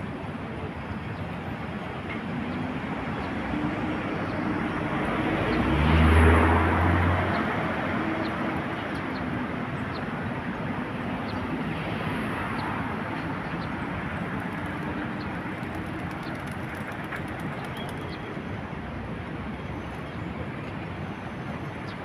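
Steady city traffic noise, with a heavy vehicle passing close and loudest about six seconds in, its engine hum rising and fading away; a smaller swell of passing traffic follows near twelve seconds.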